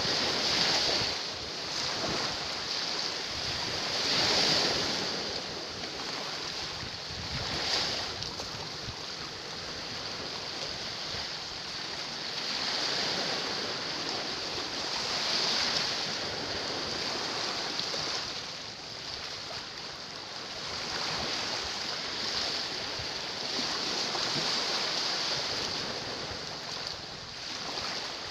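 Small sea waves washing against shoreline rocks, a steady wash that swells and eases every few seconds.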